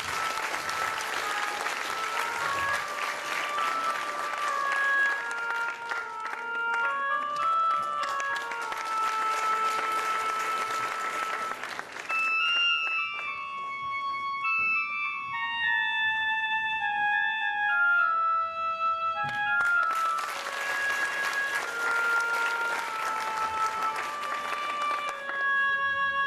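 A flute playing a melody live on stage, with audience applause over it for roughly the first half and again near the end. In the quieter middle stretch the flute is heard alone, playing a run of notes that steps downward.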